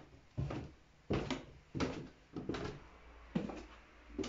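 Footsteps on a staircase: a steady run of short thumping footfalls, a little under two a second.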